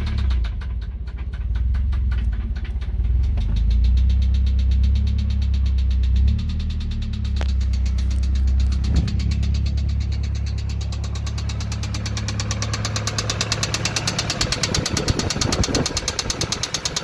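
Nissan 240SX's KA24DE twin-cam four-cylinder idling just after a start, with a loud, rapid, even knocking from inside the engine that grows plainer in the second half as it is heard at the open hood. The engine is blown, and the owner believes something is bent inside.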